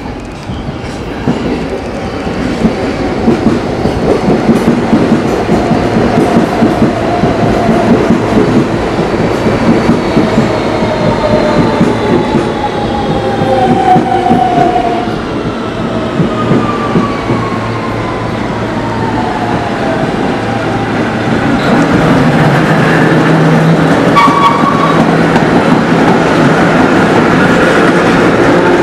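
Vintage R1/R9-type ("Arnine") New York City subway train running through the station without stopping. It gets louder as it approaches and passes close by, with wheels clacking over the rail joints and a whine from the motors that glides down in pitch again and again.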